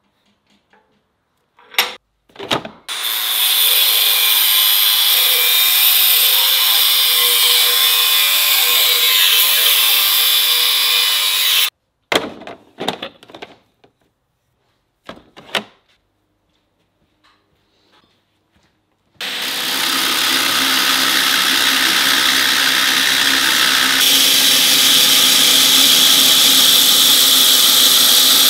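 A few tool clanks, then a power tool grinding steel runs steadily for about nine seconds and stops abruptly; more clanks follow. About two-thirds through, a belt grinder starts up steadily as a drill bit spun in a cordless drill is ground to a point against the belt, throwing sparks.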